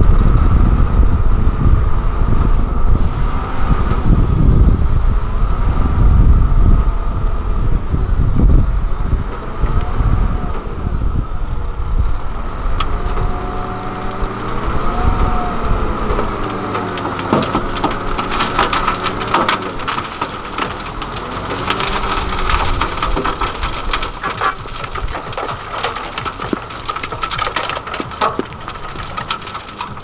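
Hyundai Trago 25-tonne dump truck tipping its load: the engine runs under a deep rumble at first, then rises and falls in pitch as the hydraulic hoist lifts the tipper body. From about halfway, soil and rocks slide and clatter out of the bed.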